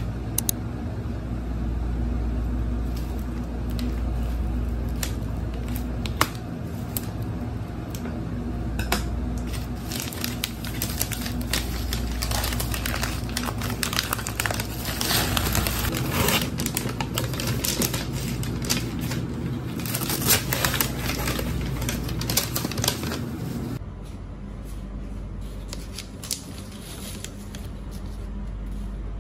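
Brown kraft paper crinkling and rustling in quick, irregular crackles as it is unfolded from around a loaf of bread, over a steady low hum.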